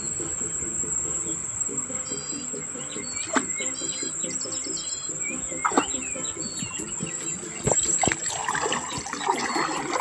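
Steady, high-pitched insect drone with bird chirps over it, a few sharp clicks, and water splashing near the end as the cast net is pulled from the river.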